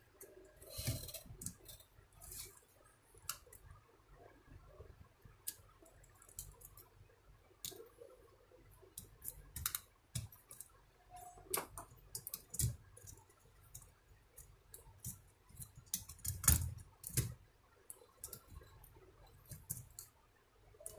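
Scattered small clicks and taps of laptop parts being handled: cables unplugged from an Acer mini laptop's motherboard and the board worked loose from the case, with one louder knock about sixteen seconds in.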